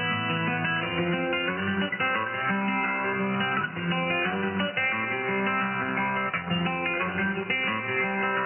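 Guitar-led music from a shortwave radio broadcast received in upper sideband, with the thin, muffled sound of a single-sideband receiver that passes nothing of the highs.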